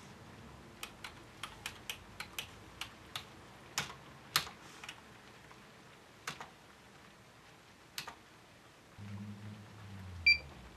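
Computer keyboard keys pressed in a quick run of clicks, then a few single presses. Near the end a low hum comes up and a short, high electronic beep sounds as the thin client starts to reboot.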